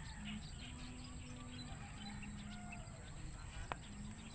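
Faint outdoor ambience with scattered bird chirps and a low hum that comes and goes. A single sharp click sounds a little before the end.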